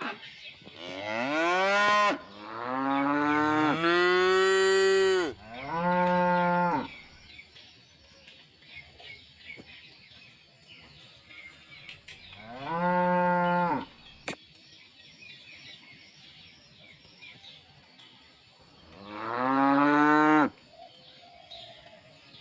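Cows mooing in a pen: four long moos one after another in the first seven seconds, then one near the middle and another near the end. Each call lasts one to two seconds, swelling up in pitch and dropping off at its close.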